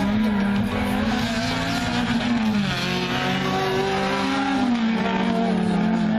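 Renault Clio rally car's engine being driven hard through a slalom of cones. Its note climbs and then drops sharply twice as the driver lifts off and changes gear, with some tyre squeal in the turns.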